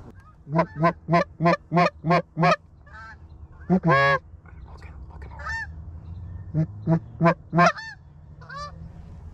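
Eastern Shoreman goose flute blown to call geese: a fast run of about seven honks, one longer honk about four seconds in, then four more honks. Fainter, falling honks of wild geese come in between the runs.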